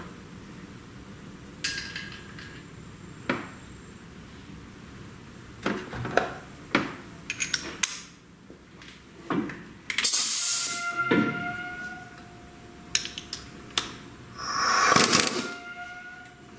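Metal hand tools and loose nuts clinking and clattering against the transmission casing while the cover nuts are being removed. The sound is a string of sharp clicks and knocks, with two longer rattling clatters around 10 and 15 seconds in, each followed by a faint ringing.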